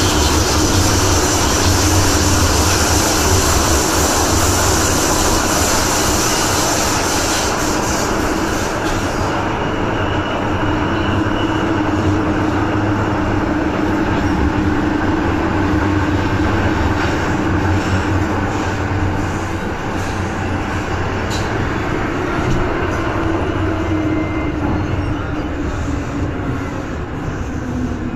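MTR Tsuen Wan line M-train running through a tunnel, heard from inside the car: a steady rush of wheel and running noise with a low hum. The highest hiss drops away about ten seconds in and the noise eases gradually toward the end, as the train nears a station.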